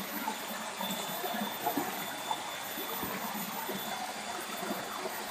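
Steady flowing and trickling water of a small stream or ditch.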